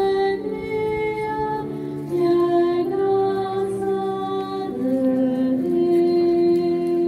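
A slow hymn sung by many voices together, moving in long held notes.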